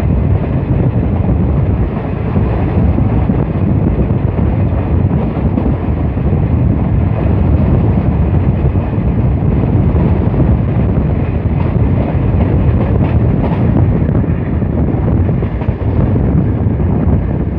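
Express passenger train running at speed, heard from a carriage window: a loud, steady rumble of the coaches on the track mixed with wind buffeting the microphone.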